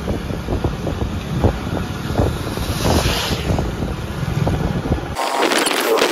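Wind rumbling over the microphone of a phone carried on a moving vehicle in heavy rain, with rain drops ticking throughout. About five seconds in the low rumble cuts off suddenly, leaving a denser spatter of raindrop ticks.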